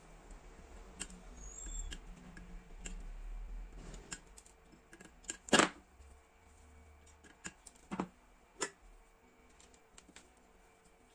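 Hand tools being handled on a workbench: a low rumble of handling for the first few seconds, then a few sharp clicks and knocks, the loudest about five and a half seconds in and two smaller ones around eight seconds.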